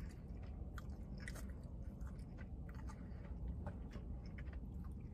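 Faint chewing of a vegan burger, with small scattered mouth clicks over a low steady hum.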